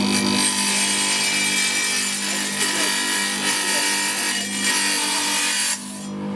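Electric benchtop tile saw running with a steady motor hum while its blade grinds through a small piece of stone. The grinding drops off near the end as the cut stops, and the motor keeps running.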